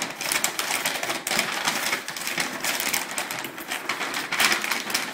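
Paper liner of a cardboard grocery box rustling and crackling irregularly as it is folded by hand around glass jars.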